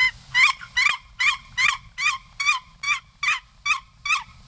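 Wooden turkey box call worked in a run of about eleven evenly spaced hen yelps, roughly two and a half a second, each yelp breaking from a higher note down to a lower one.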